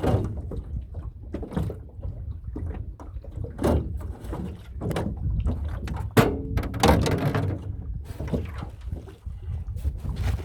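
Irregular knocks and thuds on a small boat's hull, over a steady low rumble of water and movement.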